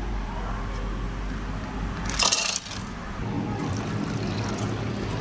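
Background noise of a busy street-food restaurant: a steady low hum, with one short, loud, sharp noise just over two seconds in.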